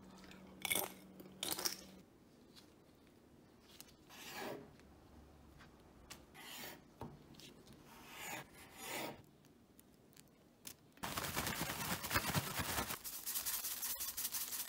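Two brief crisp crunches, then a large knife slicing through stacked dried tofu sheets on a cutting board in several separate strokes. About eleven seconds in, a plastic bag starts crinkling and rustling loudly as the tofu pieces are shaken in it with salt. The bag is the loudest sound.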